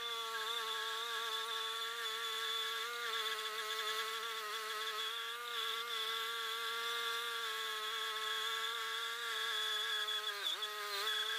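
Wood-Mizer LT10 bandsaw mill cutting through a maple log: its small Briggs & Stratton gas engine runs at a steady high buzz while the band blade saws. About ten seconds in the pitch dips briefly and recovers.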